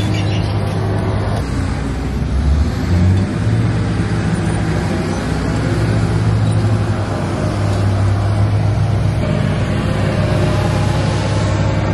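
2008 Dodge Ram 1500 pickup's engine idling with a steady low hum.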